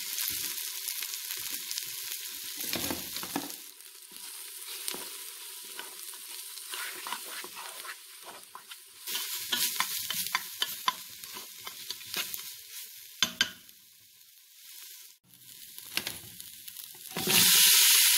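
Onion, tomato and spice masala sizzling in hot oil in a pressure cooker pot, stirred with a plastic spatula that scrapes the pot again and again. Near the end the sizzling suddenly gets much louder as the raw banana slices go into the hot oil.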